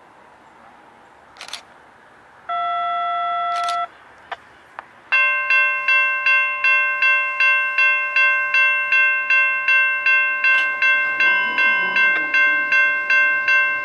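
Railroad grade crossing bell ringing in a steady rhythm, about three strokes a second, starting about five seconds in. It follows a single steady tone about a second long and a couple of sharp clicks.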